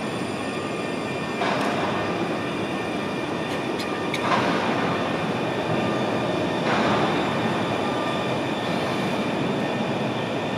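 RandstadRail light-rail tram running past a platform: a steady rolling rumble with a thin high whine held throughout. Swells of hiss come about one and a half, four and seven seconds in.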